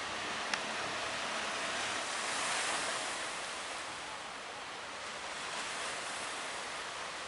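Big sea waves and wind rushing around a boat in rough water, a steady hiss that swells about two and a half seconds in. One sharp click about half a second in.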